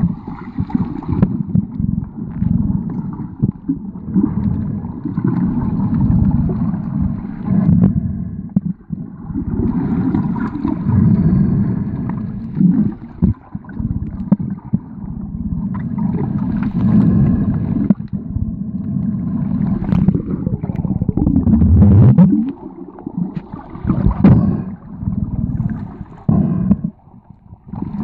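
Water heard through a camera held underwater while snorkeling: a low rumbling and gurgling that swells and fades every few seconds.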